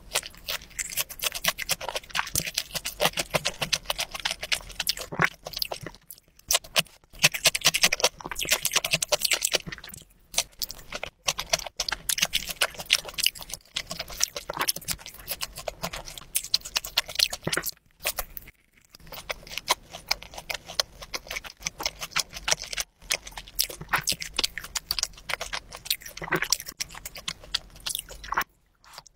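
Close-miked chewing and crunching of a sauce-coated fried pork cutlet: dense crackling mouth sounds, broken by a few short pauses between mouthfuls.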